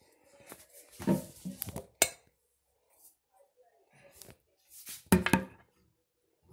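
Handling noise from a phone camera being moved about and set against hard bathroom surfaces: rustling with a few sharp clinks and knocks.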